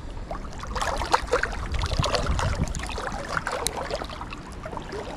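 Water splashing and trickling close by in many small, irregular splashes and drips, busiest around the middle.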